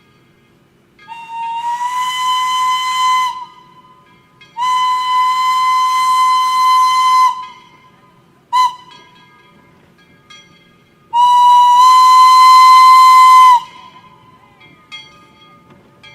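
Steam locomotive whistle blowing four blasts on one steady pitch with a breathy hiss: two long blasts, a very short toot, then a final long blast. This is the long-long-short-long pattern sounded when approaching a level crossing.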